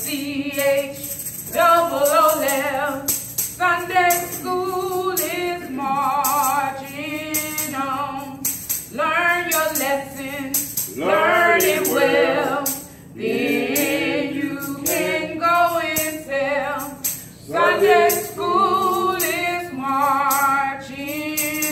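A woman singing a church song with a strong vibrato, phrase after phrase, while a tambourine jingles along.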